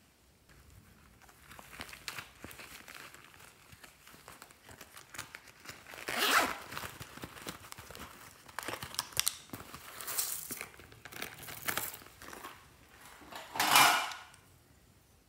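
Rustling and crinkling of a glossy plastic zip pouch being handled and opened as items are pulled out of it, with several louder scraping bursts, the loudest near the end.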